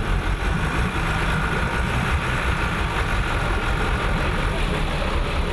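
Steyr 12M18 truck's diesel engine running steadily under load, with a faint steady whine, while a wheel turns in deep muddy water, churning it.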